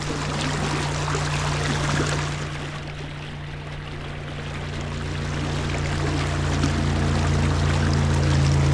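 River water rushing, with the steady hum of a motorboat engine that grows louder from about halfway through.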